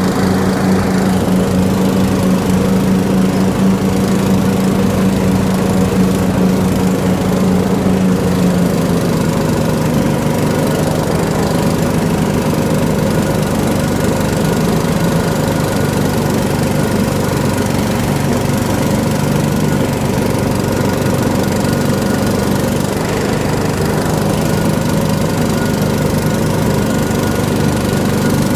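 Riding lawn mower's engine running steadily while cutting tall, overgrown grass. Its note drops slightly and turns rougher about nine seconds in.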